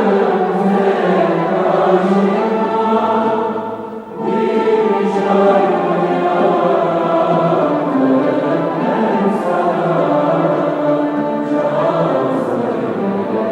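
Choir singing a classical Turkish art-music piece, held phrases with a short break about four seconds in.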